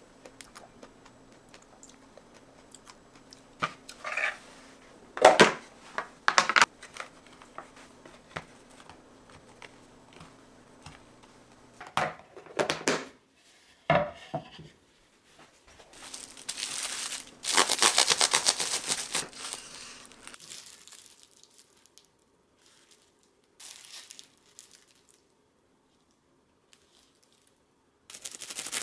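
Kitchen handling sounds: scattered light knocks, then a wooden cutting board set down on the counter with a few knocks about halfway through. Plastic cling wrap around the wrapped sandwiches then crinkles loudly for a few seconds, goes quiet, and crinkles again near the end.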